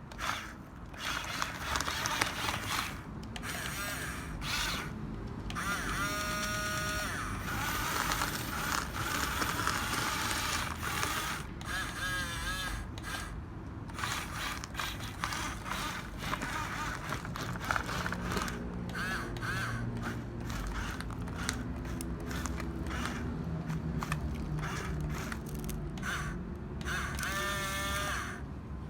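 RC toy bulldozer running: small electric motors whirring and plastic gears and tracks clicking and ratcheting. Short wavering pitched sounds come through a few times.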